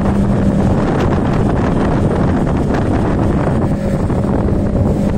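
Speedboat motor running steadily under way, with a constant low hum, mixed with strong wind buffeting the microphone.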